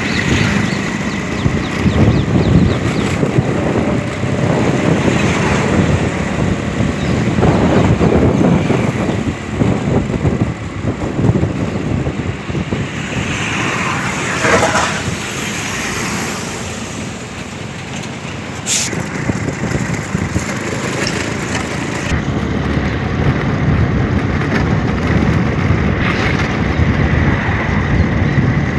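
Road traffic noise on a busy highway: vehicle engines and tyres rumbling, swelling and fading as vehicles pass. About halfway through, one sound sweeps down in pitch as a vehicle goes by.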